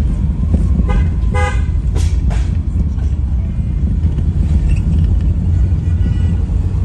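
Steady low rumble of a car driving on a rough road, heard from inside the cabin, with a brief car horn toot about a second in.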